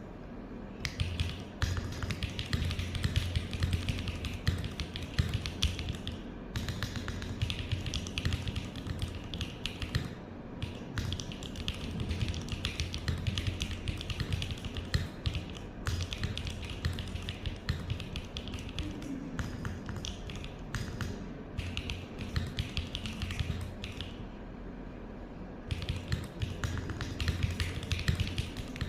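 Typing on a QK65 V2 mechanical keyboard with a POM plate, Gateron x Sillyworks Slay Type A switches and SW Foundation keycaps: fast, continuous keystrokes in runs, broken by a few brief pauses and a longer one about three-quarters of the way through.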